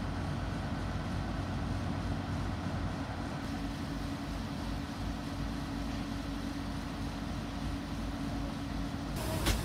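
Diesel engine of a Fiat ALn 668 railcar idling while the railcar stands still: a steady, even hum with a held low tone. A brief click near the end.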